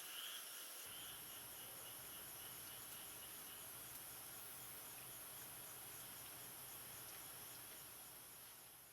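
Faint outdoor ambience of insects chirping in a steady, evenly repeating pattern over a high hiss, fading out near the end.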